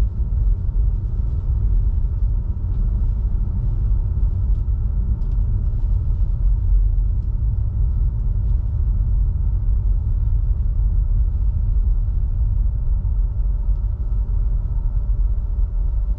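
Steady low road rumble of a Tesla Model 3 driving at about 50 km/h on a snow-covered road on all-season tyres, with a faint steady hum above it.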